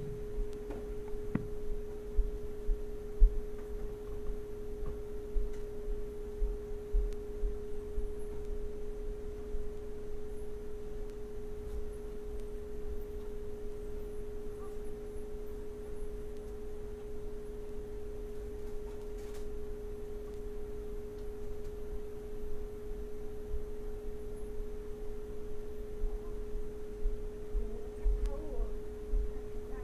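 A steady hum at one pitch, with fainter lower tones beneath it, holding unchanged throughout.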